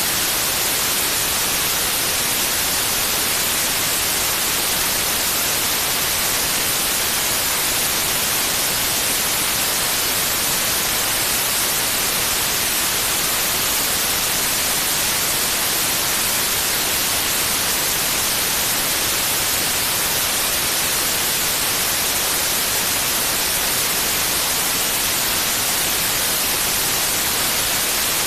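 Steady white noise: an even, unchanging hiss, strongest in the high end, with no breaks or changes.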